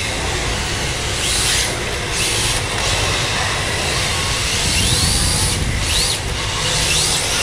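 RC drift cars running on a polished tile floor: the electric motors whine in short rising-and-falling sweeps as the throttle is worked, over a steady hiss of the hard drift tyres sliding on the tiles and a low rumble.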